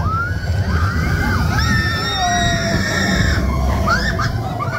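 Mine-train roller coaster rumbling along its track, with several riders screaming and whooping over the rumble.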